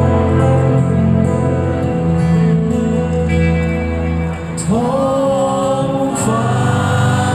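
Thai rock band playing live in an arena, heard from the audience seats: sustained guitar and keyboard chords, with a voice singing in about halfway through.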